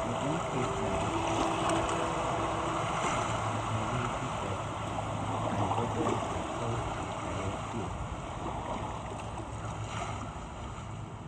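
Steady outdoor background noise: an even rushing hiss with a low hum underneath, and a few faint brief tones in the first few seconds.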